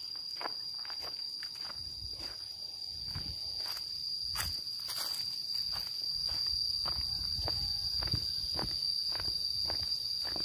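Footsteps of someone walking along a road, about two steps a second, over a steady high-pitched insect drone.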